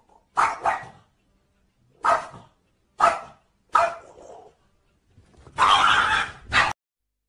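Small dog barking: about five sharp barks a second or so apart, then a longer, harsher outburst near the end that cuts off suddenly.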